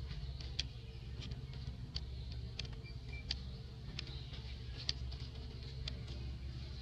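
Irregular sharp clicks and crackles, roughly one a second, from a macaque handling and biting a piece of food among dry leaves, over a steady low hum.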